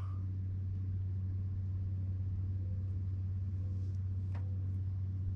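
A steady low hum with no change in pitch or level, and a faint click about four seconds in.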